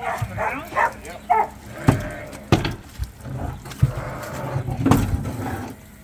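Rams bleating, with several sharp knocks and thuds from the wooden loading ramp and truck box as they are loaded.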